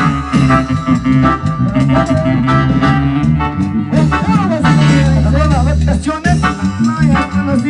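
Loud dance music with a steady beat and a melody line over it, running without a break.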